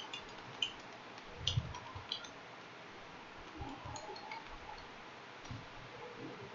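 Faint typing on a computer keyboard: scattered light key clicks, with a couple of low thumps.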